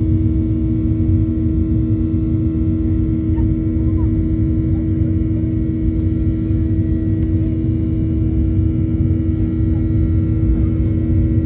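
Boeing 737-800 jet airliner in flight, its CFM56 turbofan engines giving a steady drone with a low rumble and an even hum heard inside the cabin.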